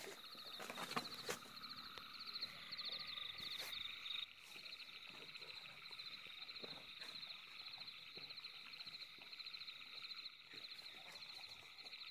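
Faint, continuous chorus of rapid, high-pitched pulsed calls from small animals. A few sharp knocks sound in the first four seconds.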